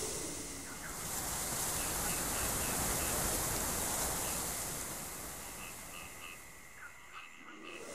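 Night ambience track: a steady hiss with faint short chirps repeating every fraction of a second, dipping quieter in the last couple of seconds.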